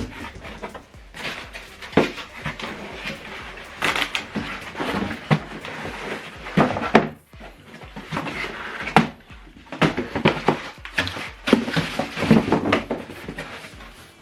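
Unboxing handling: plastic and cardboard packaging rustling, with irregular knocks and thuds as the printer and its packing are moved around.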